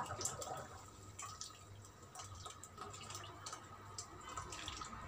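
Thick blended tomato purée poured from a plastic blender jug into a steel pot of harira soup, landing with faint, irregular plops and drips.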